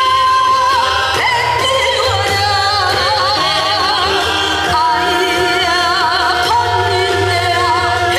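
A female pansori singer sings a Korean song through a microphone and PA over a recorded accompaniment. She holds one long note, breaks off about a second in, then goes on with long held notes in a strong, wide vibrato.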